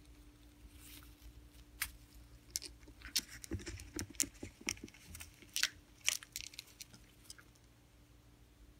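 A green-cheeked conure nibbling and biting a hard black plastic object with its beak: an irregular run of sharp clicks and crunches, busiest in the middle, over a faint steady hum.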